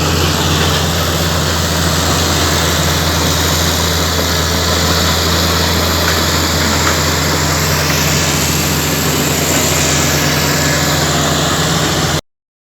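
Komatsu D85 bulldozer's diesel engine running at a steady idle, a heavy low drone that cuts off abruptly near the end.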